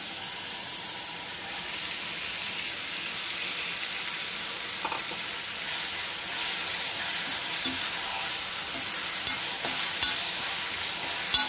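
Chopped tomatoes frying in hot oil with onions in a metal kadai: a steady sizzle while a spatula stirs and scrapes the pan, with a few light clicks of the utensil against the metal near the end.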